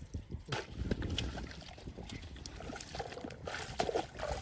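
Shallow muddy water splashing and sloshing irregularly, in many short uneven splashes.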